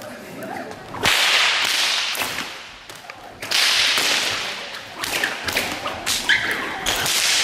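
Fighting sticks swishing through the air and cracking on contact as two stick fighters trade blows, with a quick run of sharp strikes near the end.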